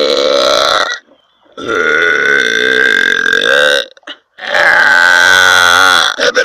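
A young woman burping loudly: three long, drawn-out burps. The first ends about a second in, the second lasts a little over two seconds, and the third starts at about four and a half seconds.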